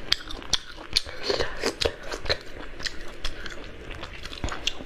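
Close-miked eating: a person chewing and biting food, with many short, irregular crunchy clicks and mouth sounds.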